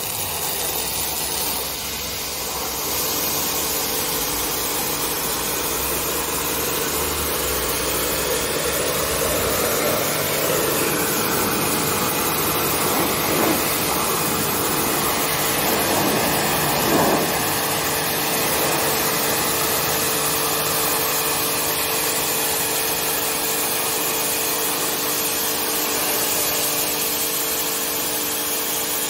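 Pressure washer running steadily with a constant motor hum, its high-pressure water jet hissing as it sprays against fence pickets.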